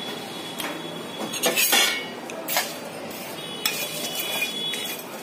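A steel plate knocking against a dry pan as whole spices are tipped in, then a steel spatula scraping and clinking in the pan as coriander seeds, cumin and dried red chillies are stirred for dry roasting. There are several sharp clinks, some with a brief metallic ring.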